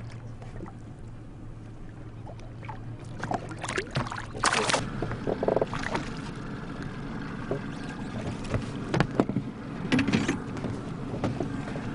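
Water lapping against a small boat's hull, with splashing from a hooked fish thrashing at the surface about four and a half seconds in and again around nine to ten seconds, as it is pulled alongside.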